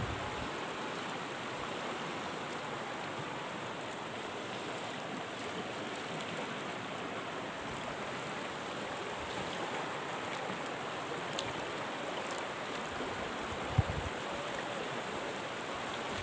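Shallow river water running over rocks, a steady rushing. One brief thump near the end.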